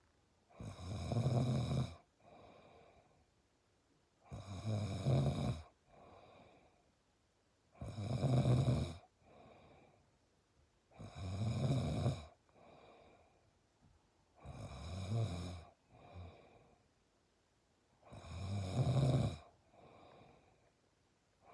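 Snoring in a steady rhythm: six loud snores about three and a half seconds apart, each followed by a softer breath out.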